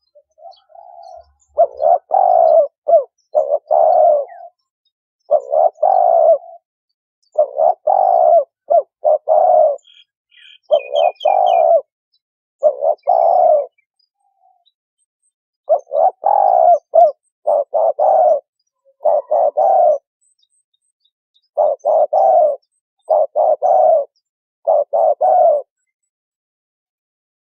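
Spotted dove cooing: repeated phrases of three or four low coos, a call file used as a lure for trapping doves. A brief run of faint high chirps from a small bird comes about eleven seconds in.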